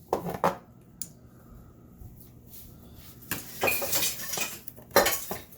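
Ice chunks and hard plastic parts of a frozen-up refrigerator ice maker clattering and rattling as the iced-up bin is worked loose. A few sharp clatters at the start, a click about a second in, a longer rattling scrape around the middle, and a last clatter near the end.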